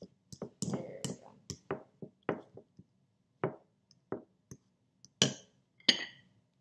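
Metal fork mashing banana with oats in a small bowl: irregular clicks and knocks of the fork against the bowl, the two loudest near the end with a short ring.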